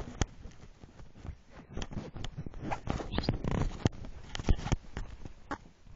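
Handling noise from a handheld phone: irregular rustling with many sharp clicks and knocks, busiest around the middle.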